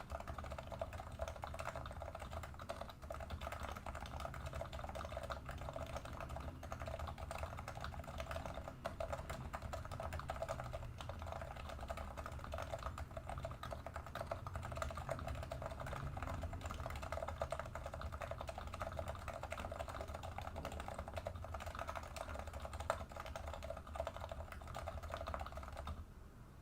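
Leopold FC660C Topre keyboard with lubed 45g silent rubber domes and lubed stabilisers, typed on fast and without a break: a dense, even run of muted keystrokes that stops just before the end.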